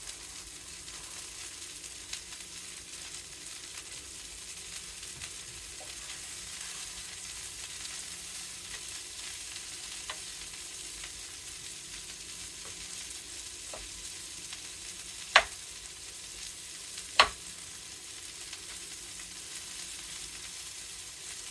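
Tofu stir fry sizzling in oil in a skillet, a steady frying hiss. Two sharp knocks stand out about 15 and 17 seconds in, with a few fainter clicks elsewhere.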